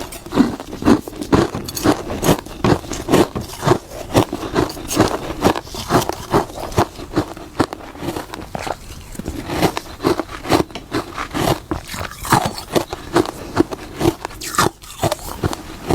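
Close-up crunching of hard freezer frost being bitten and chewed, a rapid run of sharp, brittle crunches several times a second.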